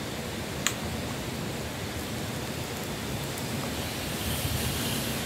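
Steady background hiss with one sharp click about two-thirds of a second in. Near the end a man breathes out a drag of cigarette smoke.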